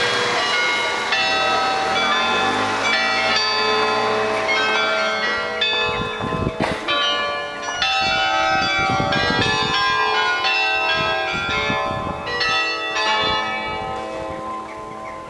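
Carillon bells in a tower playing a tune: many quick ringing notes at different pitches, overlapping as they decay, growing fainter toward the end. Low thuds on the microphone come in from about six seconds in.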